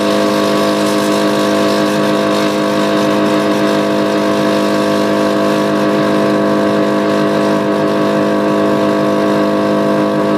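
A Nissan Maxima's VG-series V6 engine runs at steady revs while the car is driven, heard from inside the cabin: a loud drone over road noise that holds one pitch, neither rising nor falling.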